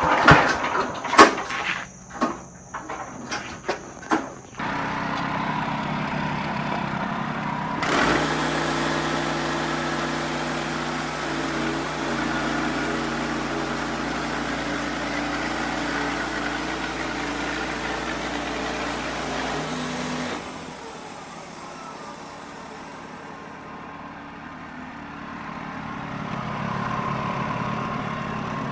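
Wood-Mizer LX55 sawmill: a few sharp knocks, then the machine starts running about four seconds in. About eight seconds in it gets louder and runs steadily under load as the band blade goes through the white oak log. Around twenty seconds in it drops back to a quieter running level, then rises again near the end.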